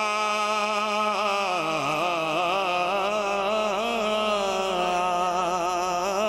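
A man singing a Punjabi devotional kalam, drawing out one long unbroken phrase with a wavering, sliding pitch.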